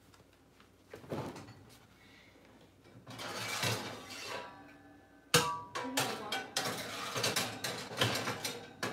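Metal pots and pans clattering as they are rummaged through and pulled out from under the stove: a knock about a second in, then a sharp clang about five seconds in followed by repeated clanks and rattles.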